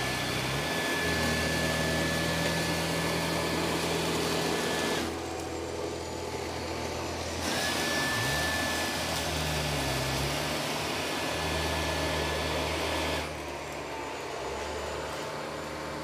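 Dyson 360 Vis Nav robot vacuum running, a steady motor drone with a high whine. About five seconds in the whine and level drop away, return a couple of seconds later, and fall off again near the end.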